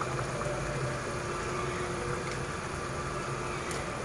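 A steady mechanical hum with an even hiss under it, with a faint sizzle from raw chicken mince in hot oil in the pan.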